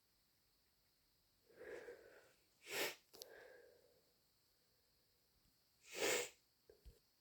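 A person with a head cold sniffing twice through a congested nose, two short, sharp sniffs about three seconds apart, with soft breaths between them.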